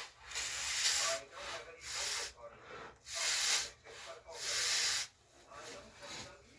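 A person blowing their nose hard, five or so separate hissing blows, each about half a second to a second long, to clear dust out of the nose.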